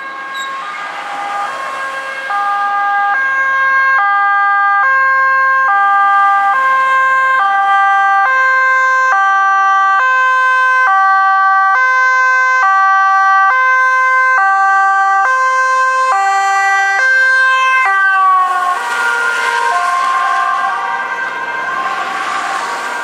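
Dutch ambulance two-tone siren, alternating steadily between a high and a low tone, as used on an A1 urgent emergency run. Near the end the tones slide lower, and engine and tyre noise grows as the ambulance comes close.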